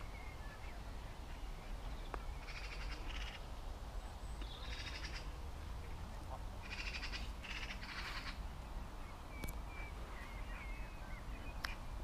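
A crow cawing four times, harsh rasping calls about half a second each between roughly three and eight seconds in. Faint thin chirps of small birds come near the start and again near the end, over a low wind rumble.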